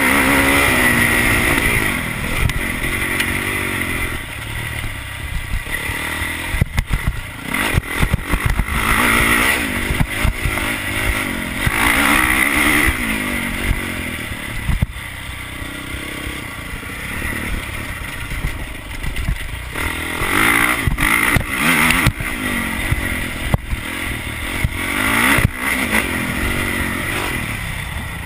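Honda motocross bike's engine revving up and falling back again and again as it is ridden on a dirt track, heard from on the bike. Sharp knocks and rattles come in clusters along the way.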